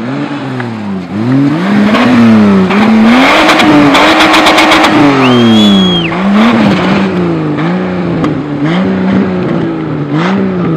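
BMW E30's engine revving up and down over and over under throttle while drifting, with tyre squeal from the sliding wheels loudest around the middle.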